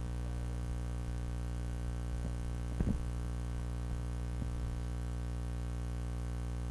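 Steady low electrical hum with several fixed pitches, unchanging throughout, with a faint brief sound about three seconds in.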